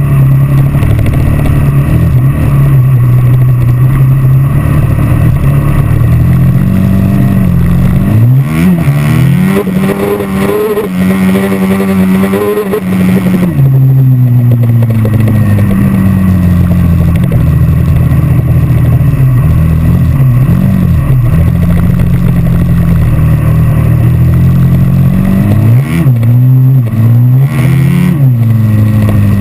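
Dirt bike engine running hard under the rider on a sandy trail. About a third of the way in the revs climb and hold high for several seconds, then drop back. Near the end there are a couple of quick rev rises and falls.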